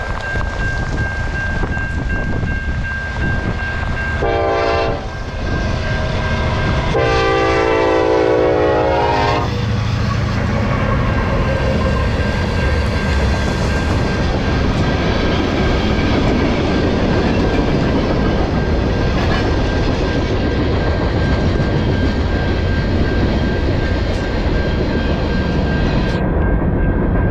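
Freight locomotive's air horn: a short blast about four seconds in, then a longer one about seven seconds in, as the train approaches the crossing. Then the train's tank cars and hopper cars roll steadily past on the rails.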